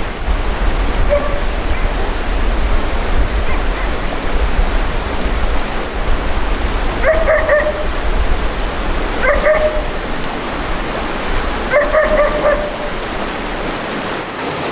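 A dog whining in short, high calls, a couple faint at first, then three clearer ones in the second half, over a loud steady rushing noise.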